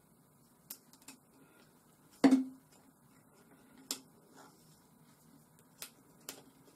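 Scattered clicks and knocks of parts of a wet brass tumbler being handled and fitted together, with one louder knock that rings briefly about two seconds in.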